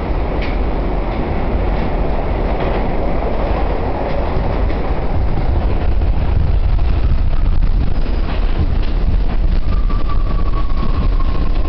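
R68 subway car running at speed, heard from inside the car: a steady deep rumble of steel wheels on rail with a run of short clicks over the track. About ten seconds in, a faint high tone sets in and slowly falls in pitch.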